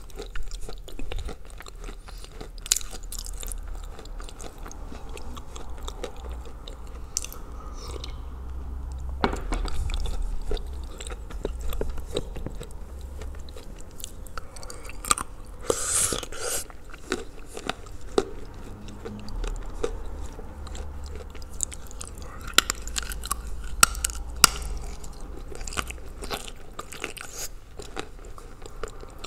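A person biting and chewing lumps of edible clay (Ural clay soaked in blue Uzbek clay), with crisp crunches and crackles at irregular moments. The crunching comes thickest and loudest a little after the middle and again later on.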